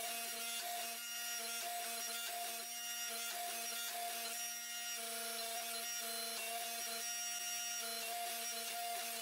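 Hydraulic forging press running as it squeezes a hot Damascus billet: a steady mechanical whine from its pump, with one tone in it that wavers on and off.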